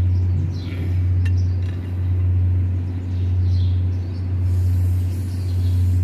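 Steady low mechanical hum that swells and fades about once a second, with a few faint high bird chirps.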